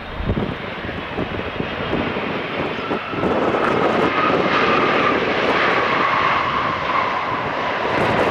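Jet engines of a landing Boeing 777, a steady rushing noise that grows louder about three seconds in as the airliner comes closer. Over the noise is a whine that slowly falls in pitch.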